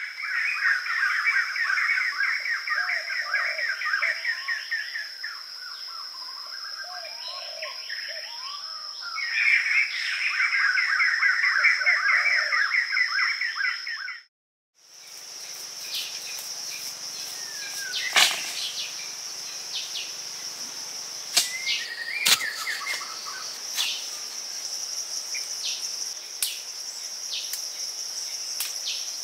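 Steady high-pitched drone of insects, with long bursts of rapid bird chirping over it in the first half. After a brief cut to silence about halfway, the drone goes on under scattered sharp clicks and knocks and a few short chirps.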